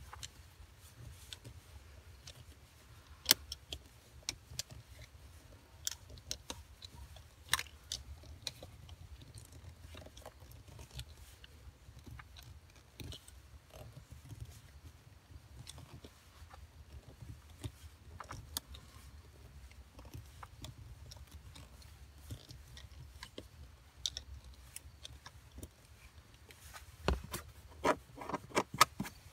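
Utility knife cutting around a pre-scored circle in a car's cargo-area side trim panel: scattered clicks, scrapes and crunches as the blade is spun around, with a few sharper snaps and a quick run of clicking near the end.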